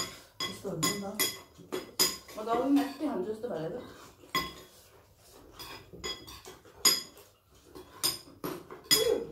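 Metal spoons clinking and scraping against ceramic bowls as people eat, with many short, sharp clinks scattered throughout.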